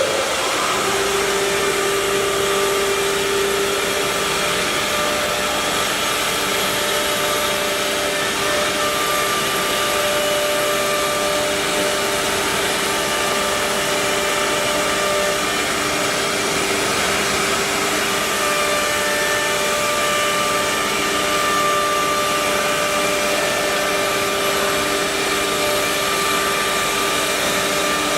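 CA-1325 four-spindle CNC wood router running: a steady, loud hiss with several steady whining tones that fade in and out.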